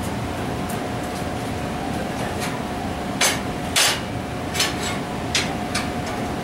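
Several short, sharp metal knocks, about six over three seconds, the two loudest near the middle, over a steady hum: steel frame pieces being knocked into place for tack welding.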